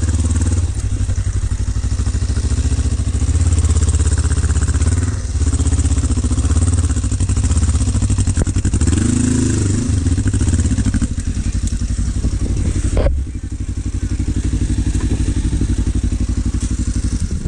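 Kawasaki KLE500 parallel-twin engine working hard at low revs under load while the trail bike climbs a wet rock slope, the revs rising and falling. About 13 seconds in comes a sharp knock, and the engine runs quieter after it.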